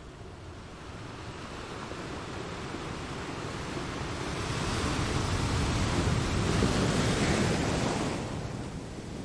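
Wind and sea surf noise, with wind buffeting the microphone; it swells about halfway through and eases near the end.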